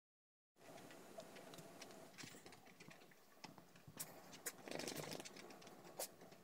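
Faint scuffling of an English bulldog and a miniature dachshund play-fighting on tatami mats: sharp taps of paws and claws, with a louder stretch of scuffling about five seconds in.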